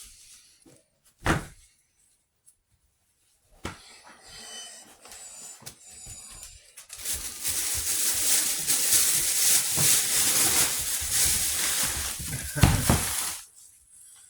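A puppy chewing and tugging at a fabric dog bed, making loud, scratchy rustling for several seconds in the second half, with a single knock about a second in.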